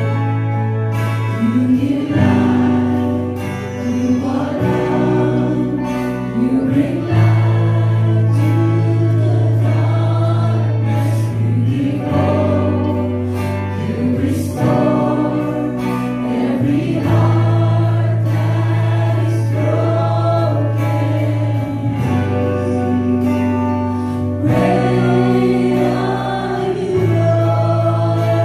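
Live worship music: a group of voices singing a slow melody in phrases over held low chords that change every two to three seconds.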